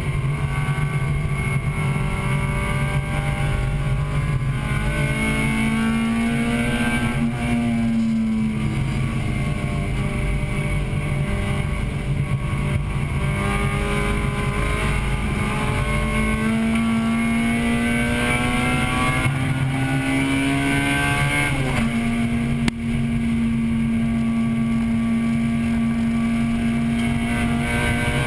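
A 1998 Acura Integra Type-R's 1.8-litre VTEC four-cylinder engine heard from inside the cabin while racing. Its pitch falls and climbs again several times. About three-quarters of the way through it drops sharply, a short knock follows, and then it holds a steady high pitch.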